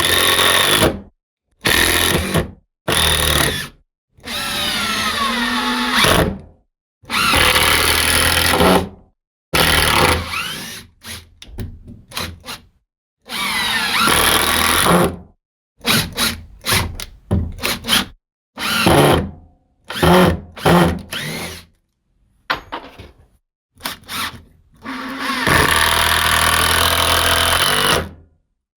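Makita 18V LXT brushless cordless impact driver run in a series of short bursts as screws are driven into wood. Some bursts spin up with a rising whine, and quick trigger and switch clicks fall between the runs.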